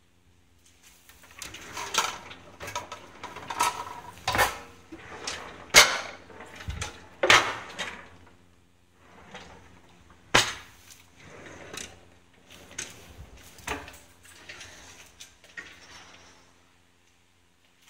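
Kitchen cupboard doors and drawers being opened and closed: a run of knocks, clicks and rattles, with a few sharp bangs among them.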